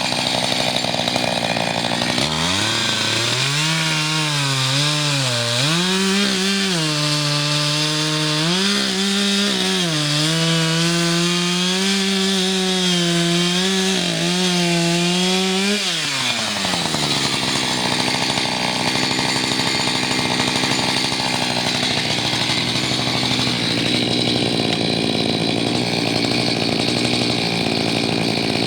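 Echo CS-590 two-stroke chainsaw idling, then throttled up about 2 s in and cutting through a small log, its pitch sagging and recovering several times under load. It drops back to a steady idle at about 16 s.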